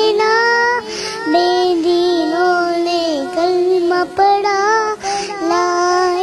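A little girl singing a naat, holding long notes that bend and glide up and down.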